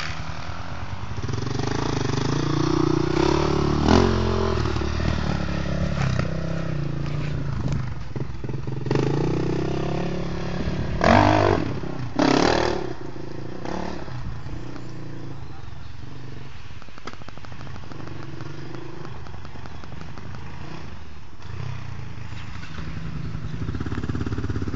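Dirt bike engines running on a motocross track, their pitch rising and falling as riders open and close the throttle. Two brief loud bursts come a little under halfway through.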